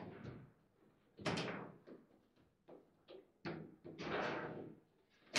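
Foosball table in play: a string of sharp knocks and clacks at uneven intervals as the ball is struck by the rod figures and bangs off the table walls, with the rods clunking in their bearings. The loudest knock comes about a second in.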